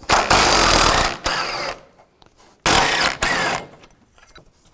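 Cordless 3/8-inch impact gun running in two bursts, about a second and a half and then about a second, as it loosens two 13 mm bolts.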